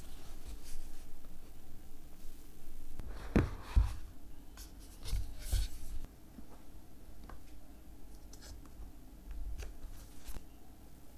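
Hands handling a cardboard iPhone box: rubbing and scraping of the paperboard as the tight lid is worked off, with soft knocks. The loudest handling comes about three to four seconds in and again around five to six seconds. Lighter scattered taps and rubs follow as the phone is lifted out of the tray.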